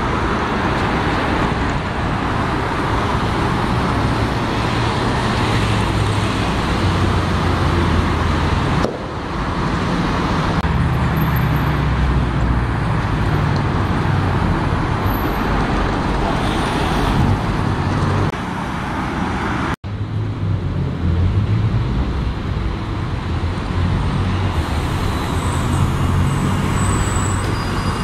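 City street traffic with diesel buses driving past, their engines giving a low rumble under the road noise. The sound changes abruptly twice, about nine and twenty seconds in.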